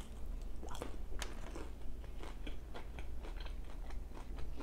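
A person chewing a mouthful of crisp tempura, with irregular soft crunches and mouth clicks, several a second.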